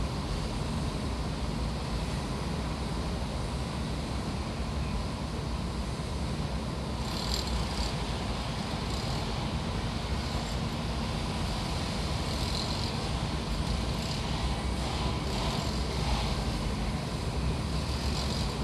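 Construction-site ambience: a steady low rumble of running engines and machinery, with intermittent short higher-pitched clatter from about seven seconds in.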